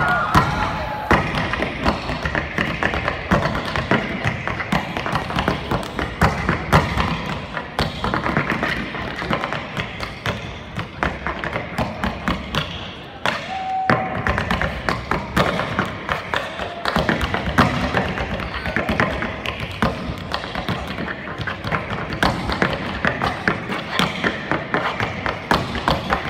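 Tap shoes on a miked tap board in a fast solo tap dance: dense, rapid rhythmic taps and heavier heel and toe thumps, barely pausing, with a brief drop in level about 13 seconds in.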